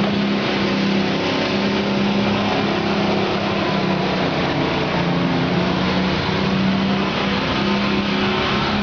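The Briggs & Stratton Vanguard 16 hp V-twin gas engine of a 2002 Arctic Cat SBS1000 utility vehicle running steadily at an even pitch.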